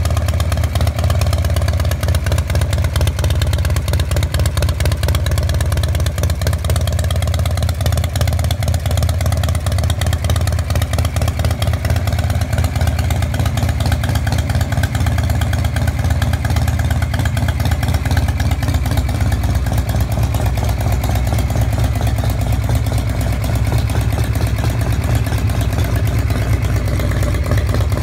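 Newly built 103-cubic-inch Harley-Davidson Shovelhead V-twin running steadily on an engine stand, its exhaust pulses loud through short open pipes.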